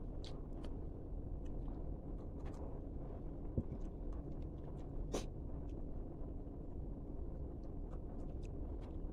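Crispy fried chicken skin being chewed: scattered short crunches and clicks, the sharpest about five seconds in, over a steady low hum.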